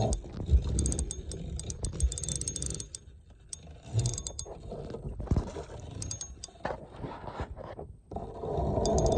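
Fishing reel being cranked while reeling in a hooked fish, its gears ticking and clicking unevenly.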